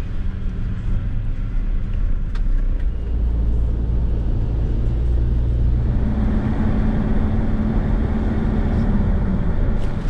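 Interior of a minibus on the move: steady engine drone and road rumble. About six seconds in the engine note shifts higher for a few seconds.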